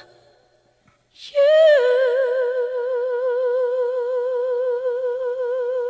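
Closing of a ballad with solo singing: the last phrase fades, and after a short pause a singer holds one long high note with steady vibrato that cuts off suddenly at the end.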